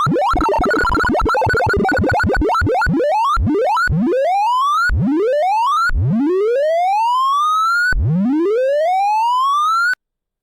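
Sorting-algorithm sonification, synthesized beeps whose pitch tracks the values of the array elements being accessed: a rapid jumble of short beeps, then a run of rising pitch sweeps, each longer than the one before, cutting off abruptly near the end.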